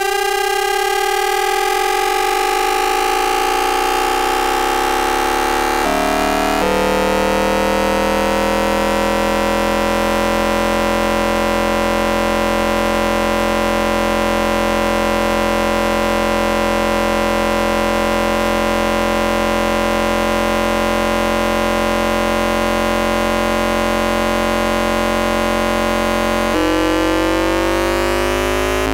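Hanshin 5500 series train's VVVF inverter noise picked up by an AM radio, with a tone at the inverter frequency added on top. It is a cluster of electronic whine tones rising slowly as the train pulls away on a low notch. About six seconds in the pattern of tones changes abruptly, then holds nearly steady, and it shifts again and starts rising once more near the end.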